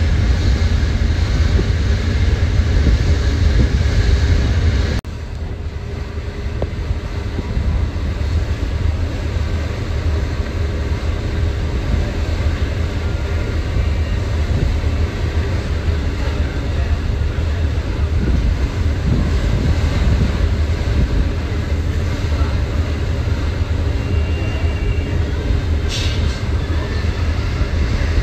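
Steady low rumble of a passenger ferry underway, with a rushing haze of wind and water noise over it. The level drops suddenly about five seconds in, then carries on steadily.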